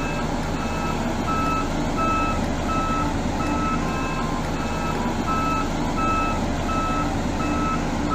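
Reversing alarm beeping about twice a second over the steady running of a truck engine.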